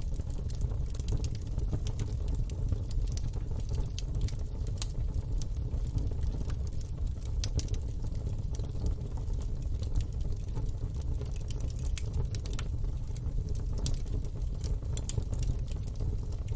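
Fire burning in a fire pit: a steady low rumble of flames with frequent irregular crackles and pops.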